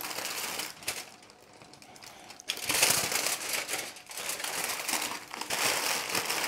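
Aluminium foil crinkling and crumpling as it is folded and pressed into a parcel by hand, with a quieter lull from about one second in until about two and a half seconds in.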